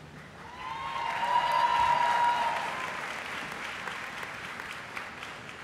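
Audience applauding for a graduate whose name has just been called, swelling about half a second in and slowly fading. A single long, held shout rings out over the clapping during the first half.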